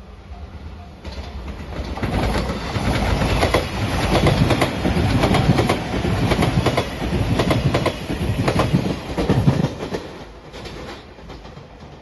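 Five-car JR Shikoku 8000 series limited-express electric train passing close by at speed. The noise builds from about two seconds in, the wheels clatter over the rail joints, and it dies away near the end. A level-crossing bell rings faintly at the start.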